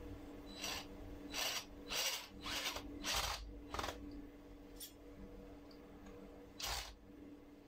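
Cordless drill driving a screw through a steel floating-shelf bracket into the wall, in short trigger bursts: about six quick runs in the first four seconds, then a brief one and a last run near the end.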